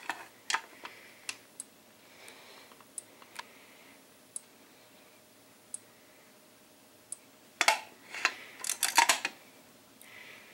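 A Simplex manual fire alarm pull station being worked by hand with its reset key: sharp plastic and metal clicks, a few faint single ticks, then a loud cluster of clacks and key rattles about eight seconds in as the station is opened and reset.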